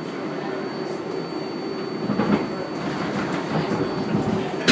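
R142A subway car running along the track, heard from inside the car: steady running noise with a faint hum and a thin high whine, and the wheels starting to clack over rail joints about two seconds in.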